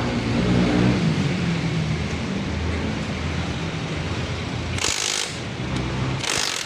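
A vehicle engine running steadily, with two short bursts of hiss about five and six and a half seconds in.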